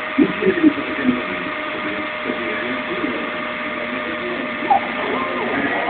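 CNC machine running: its motors give a steady whine of several tones, with short pitch glides as the axes speed up and slow down. A few brief louder sounds come near the start.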